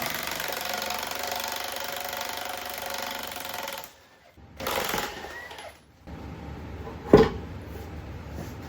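Impact wrench hammering on a large suspension-arm bolt of a Dana 60 axle for about four seconds, then a shorter burst, followed by a single sharp metallic knock a little after seven seconds.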